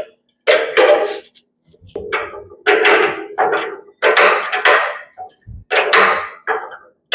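A hammer striking steel in a series of about ten blows at uneven intervals, each ringing briefly.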